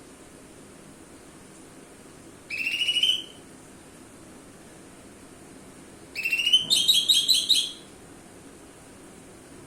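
Cucak ijo (green leafbird) singing two phrases of rapid, stuttering high notes, a short one about two and a half seconds in and a longer one about six seconds in. This is pancingan song, used to lure other cucak ijo into singing.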